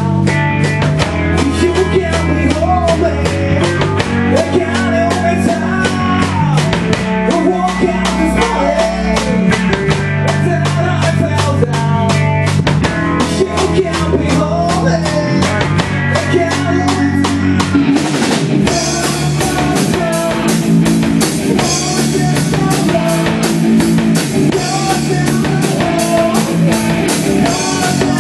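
Live rock band playing with electric guitars and a drum kit, the drums keeping a steady beat under the guitars. A little past halfway the cymbals come in thicker and brighter.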